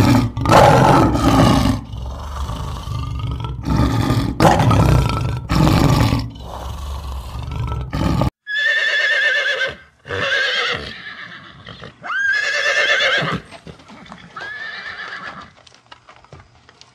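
Male lion roaring and grunting in a run of heavy calls for about the first eight seconds. Then, after a sudden cut, a horse whinnies four times, each a quavering neigh, the last one quieter.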